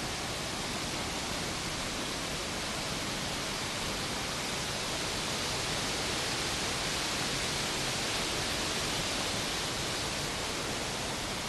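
Waterfall: water rushing steadily over a rock lip into a pool below, an even hiss that swells slightly about halfway through.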